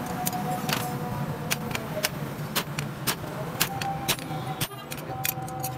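Hand hammer striking a red-hot steel bearing ring on an anvil, about two blows a second and unevenly spaced, each with a short metallic ring, as the ring is forged into a stone-cutting chisel. A steady low hum runs underneath.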